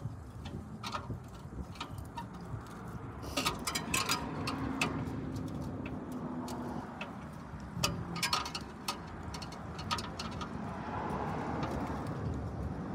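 Hand tools clicking and scraping against a clamp on the rusted exhaust pipe under a van, with small clusters of sharp metal knocks about three seconds in and again about eight seconds in, over a steady low rumble.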